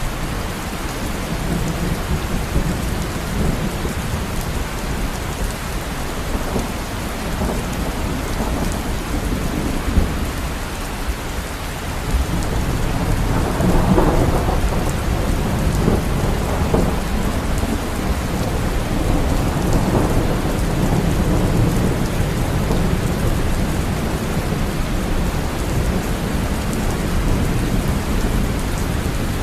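Steady rain falling, with a deep rumble of thunder that swells about halfway through and keeps rolling under the rain.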